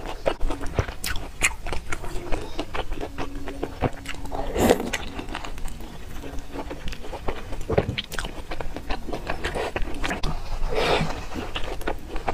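Close-miked chewing and biting of fried dough sticks soaked in soy milk: a steady run of small wet mouth clicks and smacks, with two louder wet mouth sounds near the middle and near the end.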